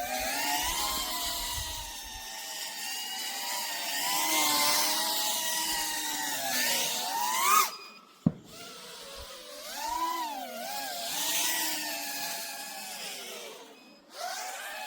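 Brushless motors and propellers of a 5-inch FPV freestyle quadcopter (iFlight Nazgul XL5 on a 6S battery) whining in flight, the pitch wandering up and down with the throttle. Just before 8 s the whine rises sharply and cuts out for a moment with a click, then picks back up and fades near the end.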